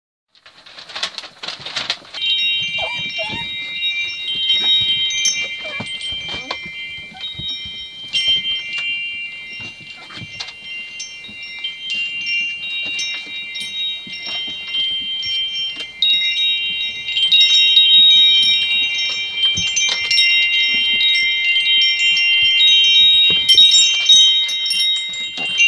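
Chimes ringing in several overlapping high tones, held and struck again every few seconds, with small clicks and knocks throughout. A short rush of noise comes before the chimes start, about two seconds in.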